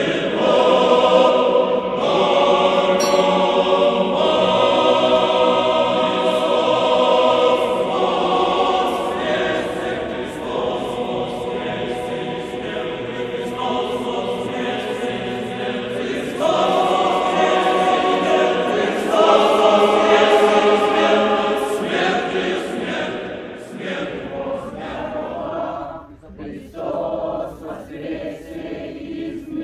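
Many voices singing Orthodox church chant together, held notes moving to a new pitch every couple of seconds. About four seconds before the end the singing thins out and breaks up.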